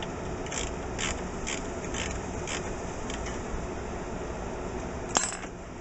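Mechanical clicking from work on a VW Beetle door's window mechanism: short sharp clicks about two a second for some three seconds, then a pause and one loud sharp click near the end.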